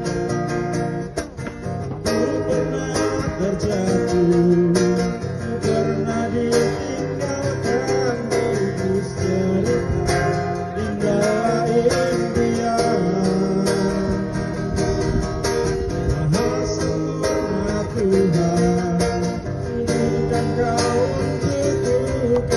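Live acoustic guitar music, the guitar accompanying a wavering melody line.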